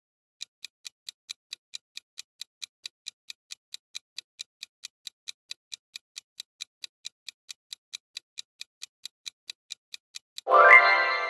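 Quiz countdown timer sound effect: fast, even clock-like ticking, about four to five ticks a second, for about ten seconds. It ends in a loud chime that rings on and fades, marking time up.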